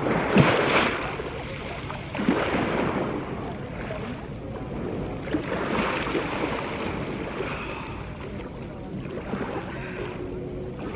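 Shallow seawater splashing and sloshing around legs as people wade into calm sea, in several surges, the loudest near the start, over a steady wash of small waves.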